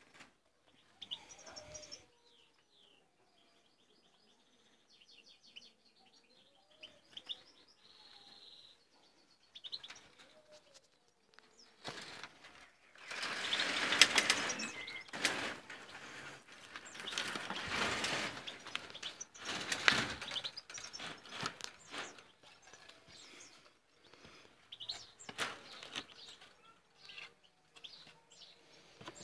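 Goldfinches in an aviary giving short twittering calls and quick trills, with a stretch of loud rustling about halfway through.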